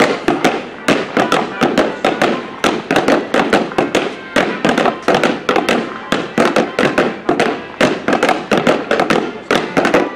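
Clogs striking wooden dance boards in rapid, rhythmic steps, several dancers clattering together. A squeezebox plays the tune faintly underneath.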